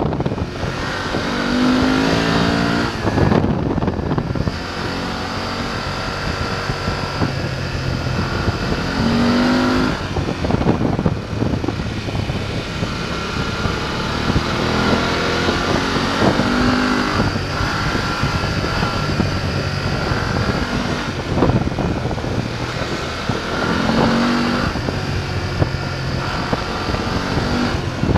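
BMW F 850 GS's parallel-twin engine under way, its pitch repeatedly climbing under throttle and falling back as the bike accelerates and rolls off through a series of bends, with wind rushing over the microphone.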